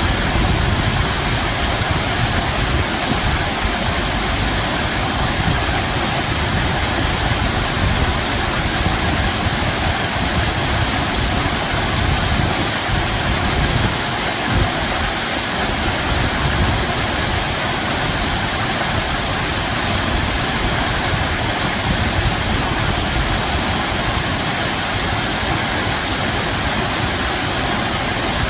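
Running water rushing steadily, with a fluctuating low rumble beneath.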